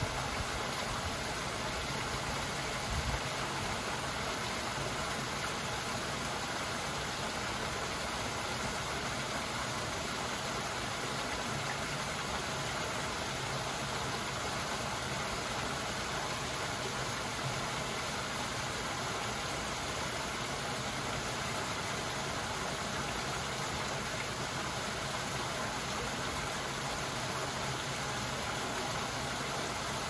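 Small garden waterfall splashing steadily over rocks into a pond, a constant even sound of falling water.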